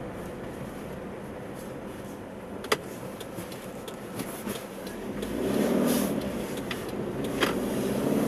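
Car engine and road noise heard from inside the cabin. The car moves off slowly, and about five seconds in the engine gets louder as it accelerates. A few sharp clicks come along the way, the loudest a little before the midpoint.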